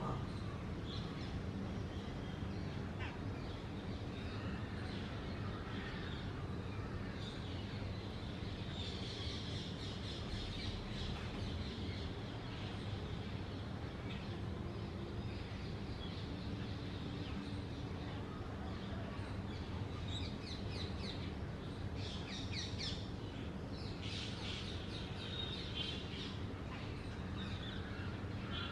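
Babblers calling in bursts of harsh, rapidly repeated chattering notes, a few times through the stretch, over a steady low background hum.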